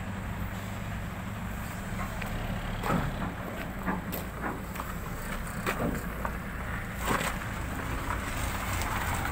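A heavy truck's diesel engine idling steadily, with a few scattered light knocks and clicks over it.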